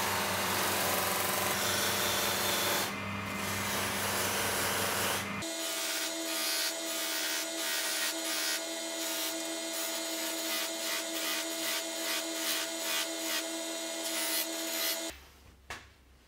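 Lathe-mounted buffing wheel spinning while a wooden bracelet is pressed against it, the wood rubbing on the wheel over the steady run of the machine. About five seconds in the low hum drops away and the sound changes to a fluttering rub with a couple of steady tones; near the end it cuts to quiet, with a single click.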